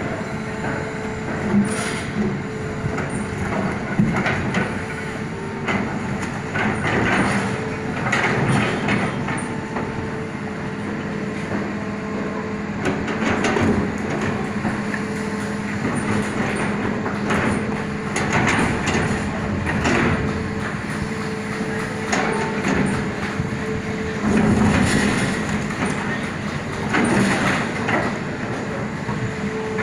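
Hitachi hydraulic excavator working: a steady engine and hydraulic drone, with irregular metallic clanks and knocks.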